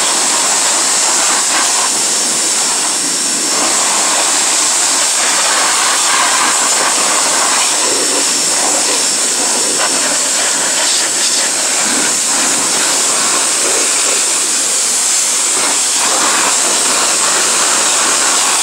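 Pressure washer jet spraying steadily: a loud, unbroken hiss of high-pressure water blasting a car wheel and hubcap.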